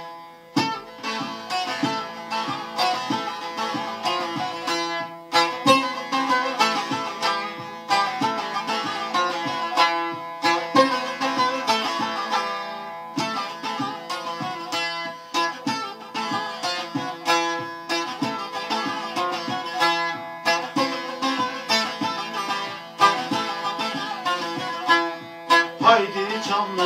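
Bağlama (Turkish long-necked saz) played briskly with rapid plucked and strummed strokes, the melody running over steadily ringing drone strings.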